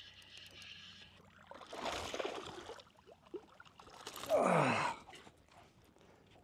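A man's wordless voice sounds: a breathy exhale about two seconds in, then a louder sigh falling in pitch past the four-second mark.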